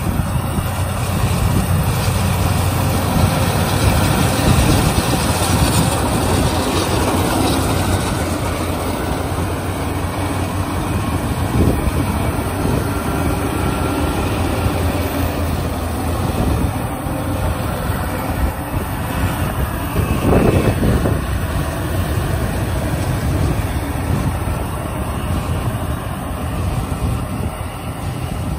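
Yanmar YH850 combine harvester running while it cuts and threshes ripe rice: a steady diesel engine and machinery drone.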